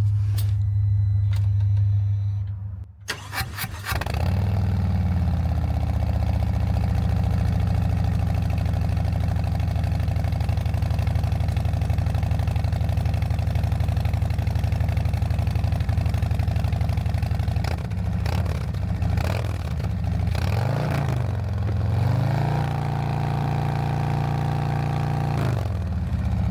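A 2024 Harley-Davidson Street Glide's Milwaukee-Eight V-twin with Tab Performance mufflers is cold-started about three seconds in, after a steady low hum, and settles into a steady idle. Near the end it is revved up and down twice, then held at about 3,000 rpm for a few seconds before dropping back.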